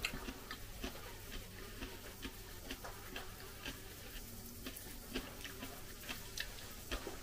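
Faint, irregular small clicks and ticks of eating a cucumber salad: chewing and a fork touching the bowl, a few a second.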